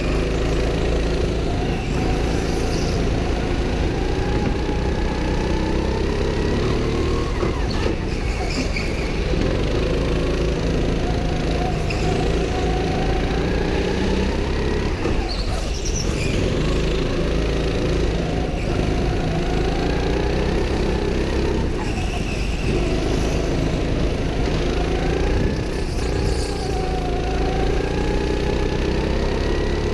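A go-kart driven hard around a track, heard onboard. Its motor note climbs on the straights and drops into the corners, over a steady low rumble.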